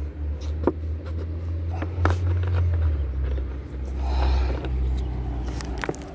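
Steady low engine rumble of road traffic, with scattered clicks and a brief rustle of leaves about four seconds in from someone walking through roadside shrubs.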